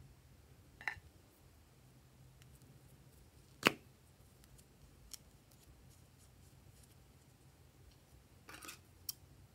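Small plastic caps being pulled off lip balm tubes: a few sharp clicks, the loudest about three and a half seconds in, over a faint low hum.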